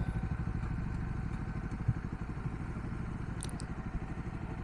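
Bajaj Dominar 400's single-cylinder engine running steadily, with a fast, even low pulse.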